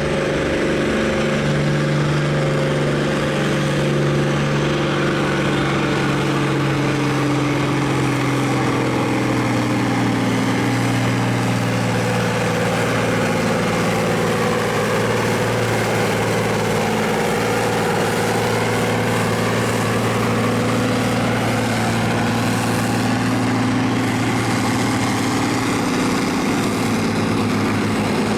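Farm stock pulling tractor's engine running hard and steady under heavy load as it drags the weight sled, its pitch holding nearly level with only slight drifts.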